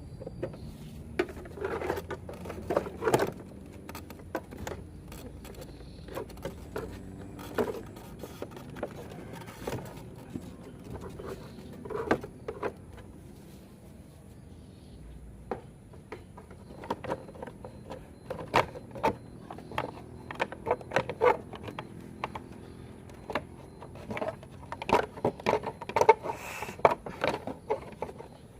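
Irregular clicks, taps and light rattles of small parts being handled, coming more thickly near the end; no horn sounds.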